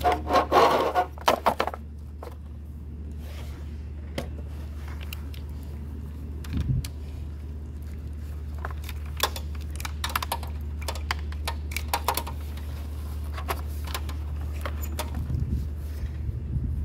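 Handling noise from an e-bike battery pack being taken apart: scattered clicks and rattles of wire connectors and the plastic case as the sealed lead-acid battery blocks are worked loose, with a few low knocks as a block is lifted out near the end. A steady low hum runs underneath, and a short loud burst comes at the very start.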